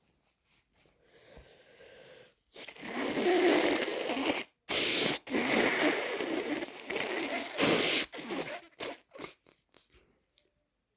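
A person with a head cold blowing a congested nose hard into a tissue, two long wet blows one after the other, followed by the crinkle of the tissue being folded.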